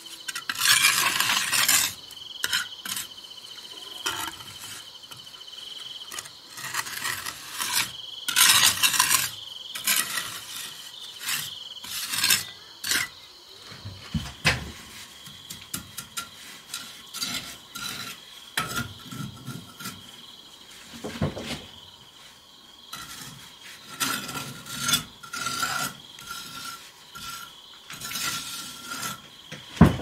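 Steel trowel scraping and spreading cement mortar on a brick wall, in repeated strokes of a second or two. Crickets chirr steadily underneath.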